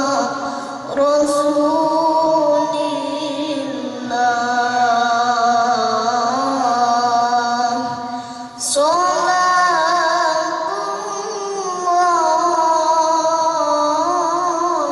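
A boy qori reciting the Quran in a melodic tilawah style into a microphone, amplified over a loudspeaker. He holds long, ornamented notes that waver in pitch, and pauses for breath about a second in and again just before nine seconds.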